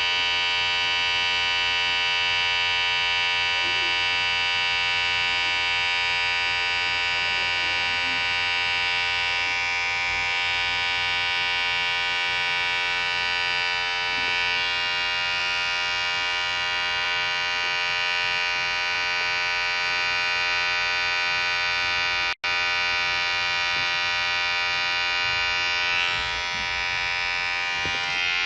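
Electric hair clipper running, a steady vibrating buzz. It drops out for an instant about two-thirds of the way through.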